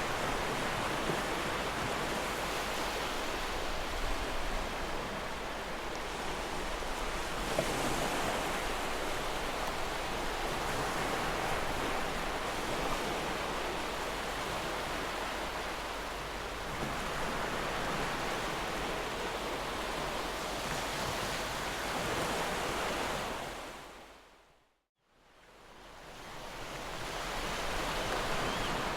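Ocean waves washing in a steady rush that swells and ebbs every several seconds. The sound fades out to silence a few seconds before the end, then fades back in.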